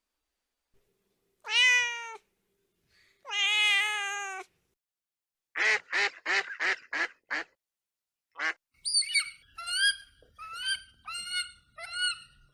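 Domestic cat meowing twice, two long drawn-out meows. They are followed by a rapid run of about seven short harsh calls, a single call, and then a string of high, upward-slurred peeps in the last few seconds.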